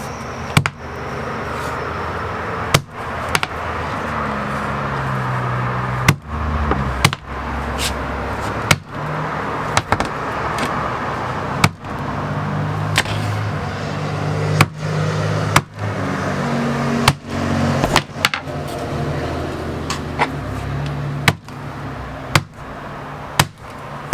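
A 6-pound sledgehammer striking a wad of folded paper: about seventeen sharp blows, one every second or two, to flatten the folds. A steady low motor-like hum runs underneath.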